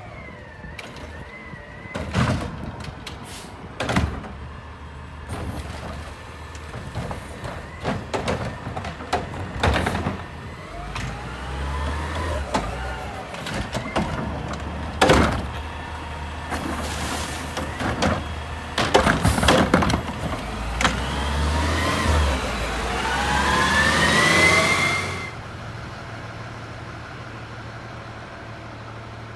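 Front-loading garbage truck with a Curotto Can automated arm working at the curb: repeated bangs and clanks of carts and the can, with the engine revving in rising whines as the hydraulics work, the longest and loudest whine about three-quarters of the way through cutting off suddenly. Afterwards the truck idles steadily.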